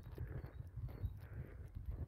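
Footsteps on a dirt and gravel path at a steady walking pace, with wind buffeting the microphone in a low rumble.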